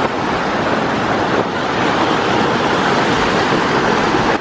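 Rushing mountain creek water, a loud, steady wash of noise that cuts off suddenly at the end.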